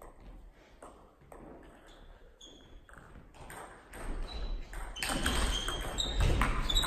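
Table tennis ball bounced on the table at an even pace, about one click every half second, ahead of a serve. About four seconds in a rally starts: quick sharp clicks of the ball off bats and table, with short high squeaks from shoes on the hall floor, growing louder.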